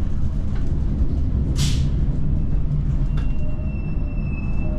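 Bergen light rail tram running, heard from inside the passenger car: a steady low rumble of the moving car, with a short hiss about a second and a half in and a faint thin high whine in the second half.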